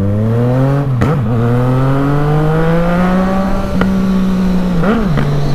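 Yamaha MT-09's remapped three-cylinder engine pulling away from a stop. Its pitch rises, drops at a gear change about a second in, rises again and then settles to a steady run, with a couple of short sharp cracks near the end.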